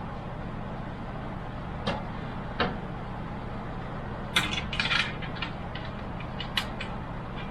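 Computer parts being handled while fitting an AIO cooler into a PC case: scattered sharp clicks and knocks, with a quick run of clattering about halfway through, over a steady low hum.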